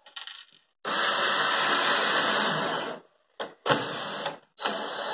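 Cordless drill-driver driving small screws into a cabinet's side panel to fix shelf brackets. It runs once for about two seconds, then in three short bursts.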